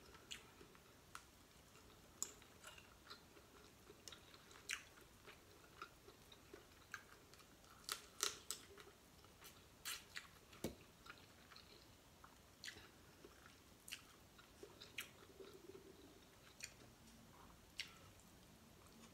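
Faint sounds of eating boiled prawns by hand: chewing and lip smacks mixed with scattered small cracks and clicks of prawn shell being pulled apart.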